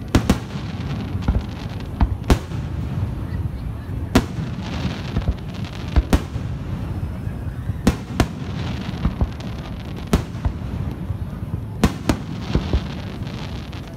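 Aerial fireworks display: about ten sharp shell bursts, one every second or two, over a continuous low rumble.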